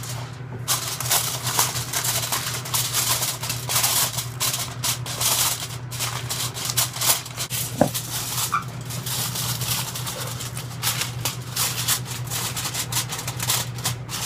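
Aluminium foil crinkling and crackling as it is unrolled, spread over a baking pan and crimped around the pan's edges, in rapid irregular crackles.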